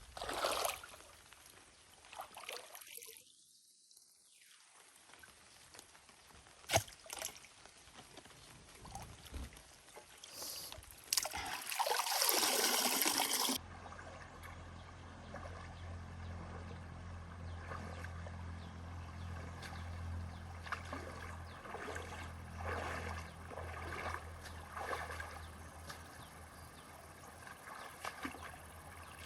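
Water splashing and trickling in a few separate stretches, loudest about twelve seconds in; a steady low hum runs under the second half.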